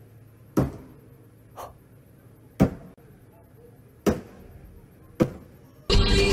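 Blows struck one after another on a parked car's bodywork with a swung object: four loud hits and one lighter one, about a second or so apart, each trailing off briefly. Music starts abruptly near the end.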